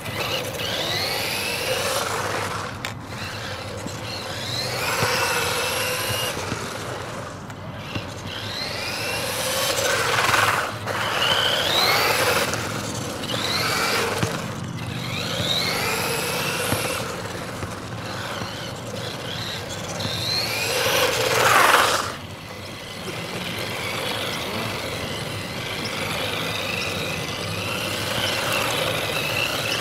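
Electric motor of a LiteHawk Brute RC truck whining up in pitch again and again as the truck accelerates in short runs, over a rushing noise of its drivetrain and tyres on asphalt. The run peaks in loudness about three quarters of the way through. The power-tool 18650 pack is carrying the motor's full load without cutting out.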